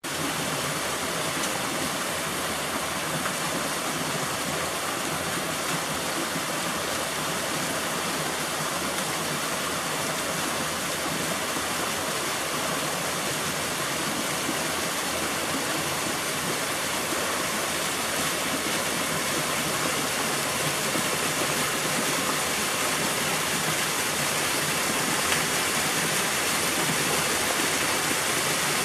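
Small waterfall pouring down a rock cleft and splashing into a pool: a steady rush of falling water that grows slightly louder near the end.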